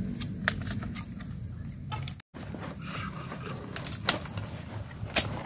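Handling noise as a bamboo skewer is pushed through a whole red pacu lying on a banana leaf: rustling and rubbing with a few sharp clicks and crackles. The sound cuts out for a moment about two seconds in.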